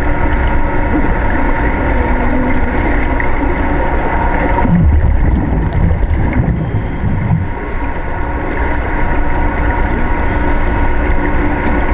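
Steady machine hum and rumble with a few constant tones. About five seconds in, the high hiss drops away for a couple of seconds while some low, uneven rumbling comes through.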